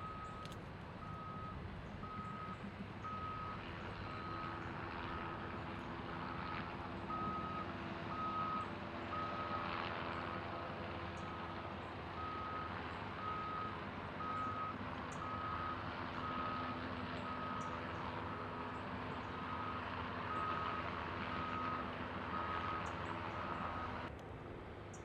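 Reversing alarm of a heavy vehicle beeping steadily at one pitch, about one and a half beeps a second, over a diesel engine running; both cut off suddenly about a second before the end.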